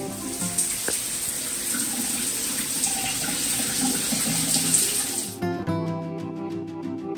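Water running from a tap into a sink, a steady rushing for about five seconds; then background music takes over.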